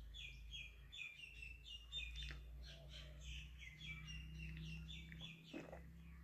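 Small bird chirping over and over, a quick run of short falling notes at about three a second, faint, over a low steady hum.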